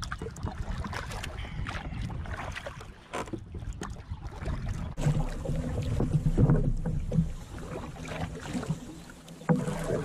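Kayak paddling: a double-bladed paddle dipping and splashing in the water, with short knocks of the paddle against the kayak, over wind buffeting the microphone.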